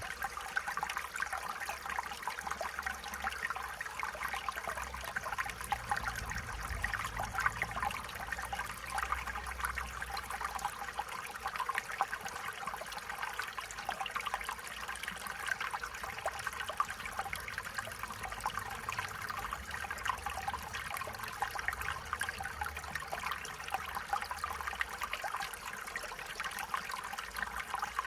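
A small stream flowing steadily, with water trickling and burbling over stones and a faint low rumble underneath.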